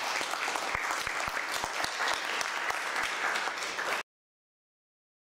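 Audience applauding with dense, steady clapping that cuts off suddenly about four seconds in.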